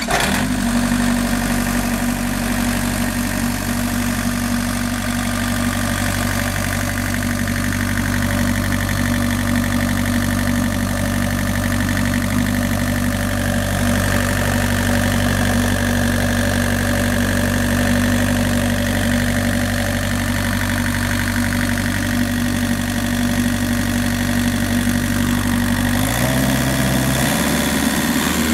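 A Takeuchi mini excavator's diesel engine runs steadily at idle, heard up close through the open engine cover. Its tone shifts a couple of seconds before the end.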